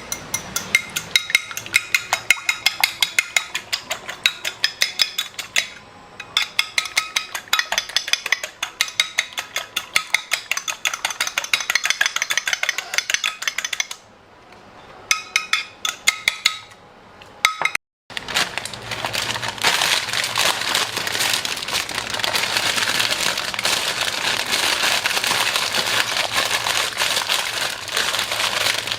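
Rapid light clinking of hard objects, several sharp ringing strikes a second, pausing briefly twice. About two-thirds of the way through, after a short break, a dense, steady crackling hiss takes over.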